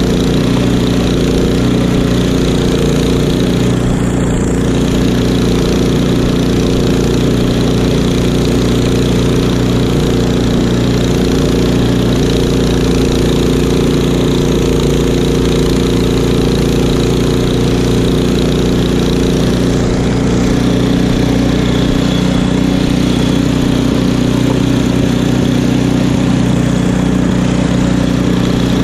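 Craftsman two-stage snowblower's engine running steadily under load while its auger and impeller chew through deep snow and throw it out the chute.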